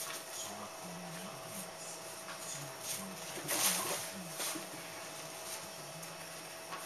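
Small electric motor of a motorized cat toy running steadily with a thin whine, its wand sweeping under a fabric cover. About three and a half seconds in comes a short burst of rustling and scuffing as a cat pounces on the cover.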